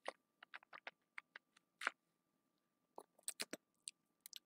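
Faint, irregular small clicks and ticks close to the microphone: lip smacks and tongue clicks while tasting a drink, with a plastic shaker cup being handled and lifted from the desk about three seconds in.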